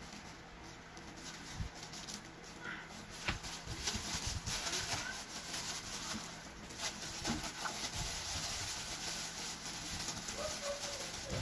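Plastic-gloved hands rubbing and squeezing a raw whole chicken in a liquid marinade in a glass bowl: irregular wet squelching and squishing with plastic glove crinkle.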